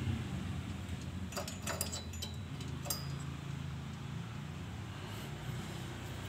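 A few light clicks and taps as a portable bicycle pump is pressed back into its clips on the bicycle's frame tube, about a second and a half and three seconds in, over a steady low hum in the background.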